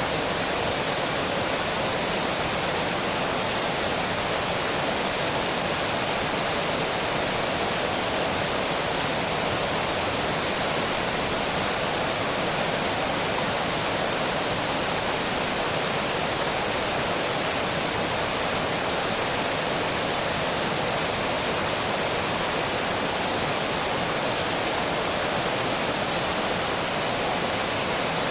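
Water pouring steadily over a small dam, a constant even rush with no changes.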